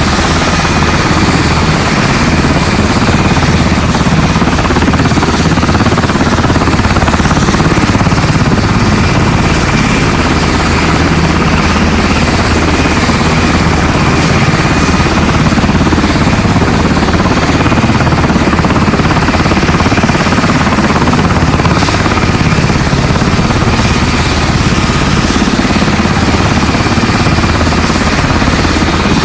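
Helicopter sound effect: rotor and engine running steadily at a constant loudness, with a thin whine held high above the noise.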